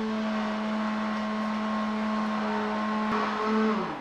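Electric stick blender whipping coconut cream into whipped cream, its motor running with a steady hum. Near the end the pitch rises briefly, then falls away as it is switched off and spins down.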